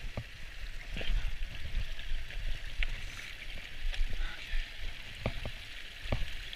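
Mountain creek running steadily, a constant rushing hiss, with a low rumble underneath and a few scattered knocks.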